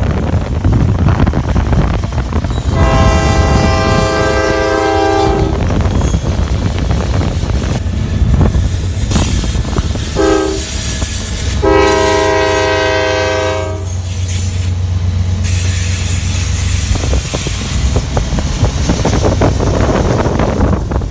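CSX diesel freight locomotive's air horn sounding a long blast, then a short one and another long one, each a chord of several tones, over the steady rumble of freight cars rolling past.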